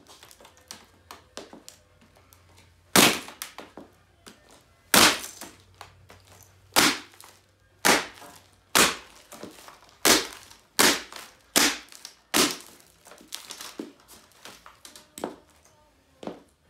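A high-heeled shoe stamping again and again on an already smashed laptop's keyboard deck. About a dozen sharp plastic cracks come at irregular intervals, with smaller crunching sounds between them.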